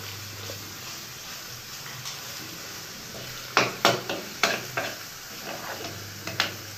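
Metal spoon scraping and knocking against a nonstick frying pan while stirring an egg and brain (magaz) fry, over a faint steady sizzle. A quick run of sharp scrapes and knocks comes about three and a half seconds in, and two more near the end.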